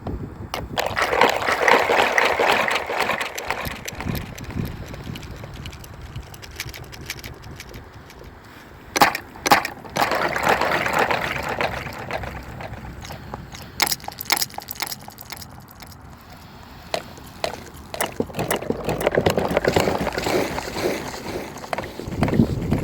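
Handheld water ring toss toy: water swishing and gurgling in three swelling bursts about nine seconds apart, with sharp clicks in between.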